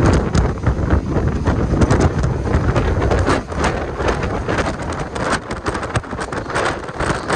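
Wind buffeting the microphone over the low rumble of a moving train, with irregular clattering knocks throughout.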